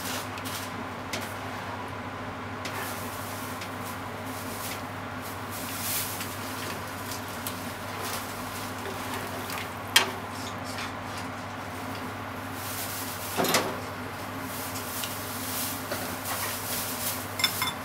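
Silicone-tipped tongs stirring and tapping in a frying pan of cream sauce, giving scattered soft knocks, with a sharper knock about ten seconds in and a brief clatter a few seconds later. A steady low hum runs underneath.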